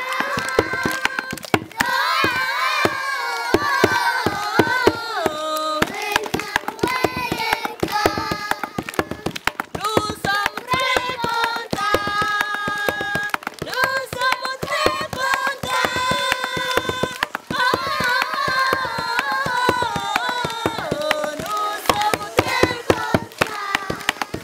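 Young children singing together in chorus, keeping time with rhythmic hand clapping, accompanied by a hide-headed drum struck with a stick.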